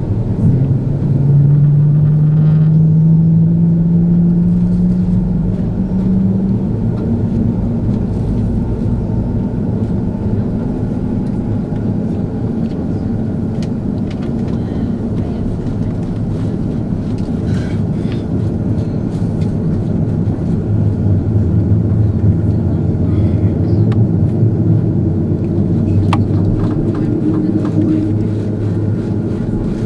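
Cabin noise of an Airbus A330-200 taxiing: a steady rumble and whine from the jet engines, with a whine that rises in pitch over the first several seconds and then holds. A few light clicks near the end.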